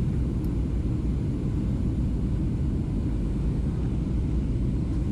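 Steady rumble of a Southwest Airlines Boeing 737's jet engines and rushing air, heard inside the cabin in flight.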